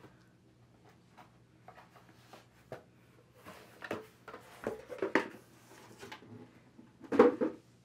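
Cardboard gift box and cotton drawstring dust bag being handled: scattered rustles and soft knocks as the bag is lifted out of the box and the box is set aside, with the loudest short rustle near the end.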